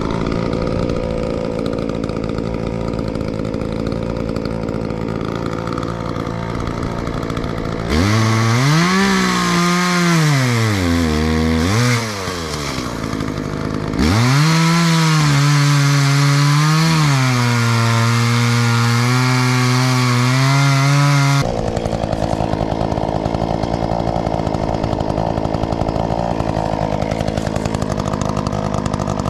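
Chainsaw running and cutting into a log. Its engine pitch swings up and down, then holds high and fairly steady for several seconds. The sound changes abruptly a few times.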